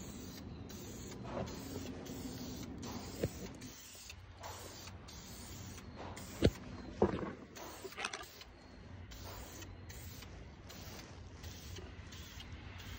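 Aerosol can of primer spraying in repeated short hissing bursts, with a few sharp knocks, the loudest about six and a half seconds in.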